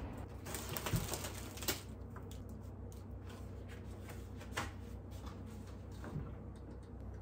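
Shopping being unpacked: aluminium beer cans set down and knocking on a stainless-steel kitchen counter, with paper and cloth shopping bags rustling. A few sharp knocks stand out, about a second in, just under two seconds in, and twice more later.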